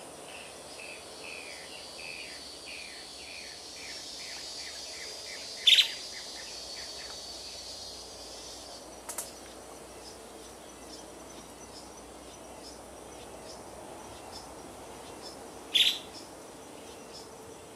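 Woodland birdsong with insects: a bird sings a quick run of falling notes for the first few seconds over a steady high insect buzz, and later a rapid high ticking carries on. Two short, sharp, loud sounds stand out, about six seconds in and near the end.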